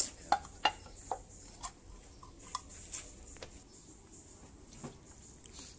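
A handful of short, sharp metallic clicks and taps at irregular spacing, strongest in the first second, as a tin can of engine flush is handled and its pull-tab lid pried open.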